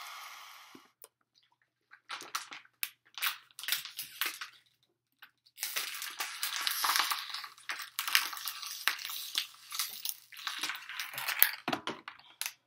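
Thin plastic water bottle crinkling and crackling as it is handled, then a long run of dense crackling from about halfway as the bottle is squeezed and crushed while being drunk from.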